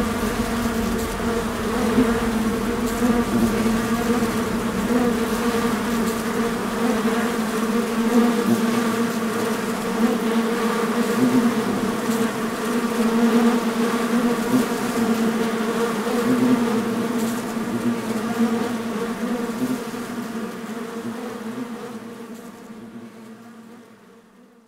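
Honeybee colony buzzing: a dense, steady hum with a clear low pitch, fading out over the last few seconds.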